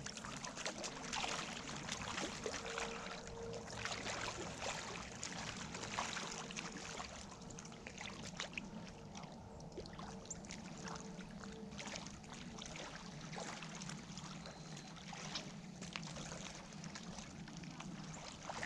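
Faint lapping and trickling of open water, with scattered small clicks and ticks throughout.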